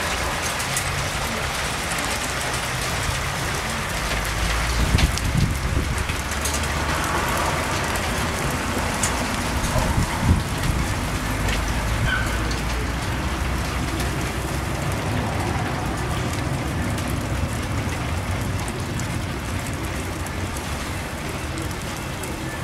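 Hail shower: small hailstones falling and striking the ground and nearby surfaces, a steady hiss dotted with many sharp little ticks. A few louder low rumbles come about five and ten seconds in.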